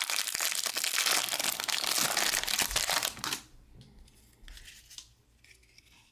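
Foil wrapper of a pack of baseball cards being torn open and crinkled for about three and a half seconds, then only faint rustles as the cards are handled.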